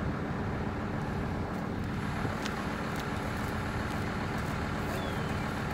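Steady low rumbling outdoor background noise on the pier, with a few faint clicks.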